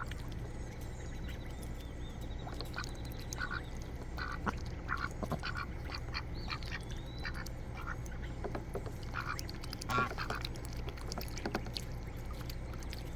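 Domestic ducks quacking in short, scattered calls from a flock, the loudest about ten seconds in.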